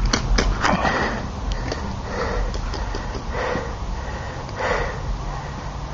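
A person breathing heavily close to the microphone, one breath about every second and a quarter. A few sharp clicks sound in the first second.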